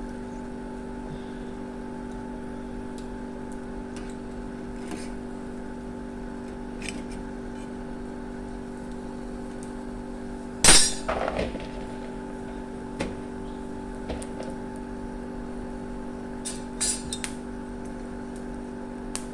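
Pan-roasting chestnuts being handled, with scattered clinks and knocks of cookware and one loud clatter about eleven seconds in, over a steady hum.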